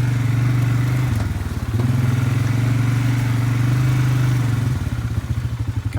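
Polaris Sportsman 570 ATV's single-cylinder engine running steadily while riding. It dips briefly about a second in, picks back up, and eases off to a lower, pulsing run near the end.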